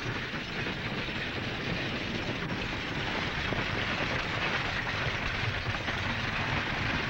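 Horse-drawn stagecoach approaching: the team's hoofbeats and the coach's rattling wheels make a dense, continuous clatter that gets a little louder as it comes near.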